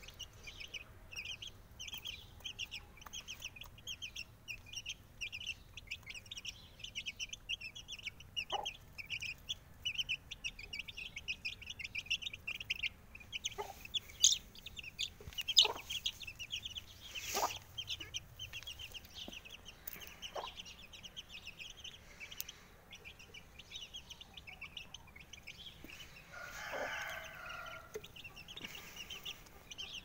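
Month-old Aseel chicks peeping in a rapid, continuous string of short high peeps. There are a few sharp taps midway, and a lower call, typical of a mother hen's clucking, near the end.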